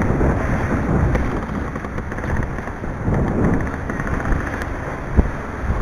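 Wind rumbling on the microphone and sea water rushing and splashing along the hull of a racing yacht under sail in rough water, with one sharp thump near the end.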